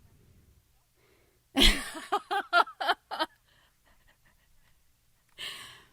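A woman laughing: a breathy burst about one and a half seconds in, then about five quick pitched "ha" pulses, and a breathy gasp near the end.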